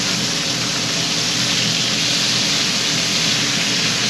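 Sheepshead fillets pan-frying in a skillet, sizzling with a steady, dense hiss.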